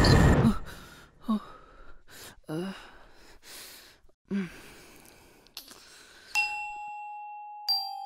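Loud music cuts away at the start. A man gives three short, strained gasping sobs. Then a bell-like chime strikes twice, about a second and a half apart, each strike ringing on.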